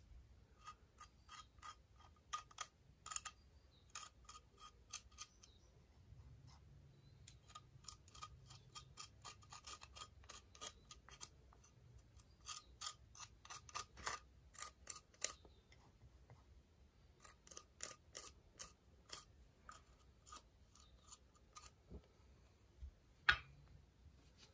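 Thin spatula scraping and tapping along the rough broken edge of a glazed ceramic bowl while spreading urushi lacquer paste onto it: faint, irregular clicks and small scratches in short runs. A single louder knock comes near the end.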